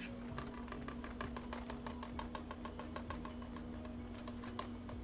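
Cornstarch being shaken out of its container onto marinated chicken: a rapid, even run of light taps, about five a second, over a steady low hum.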